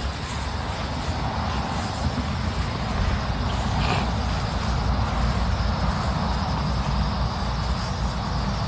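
Steady road traffic noise from passing cars: a continuous low rumble with some hiss.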